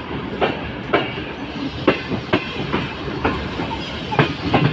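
Passenger train running, its wheels clacking over rail joints in an uneven rhythm of about two clacks a second over a steady rumble.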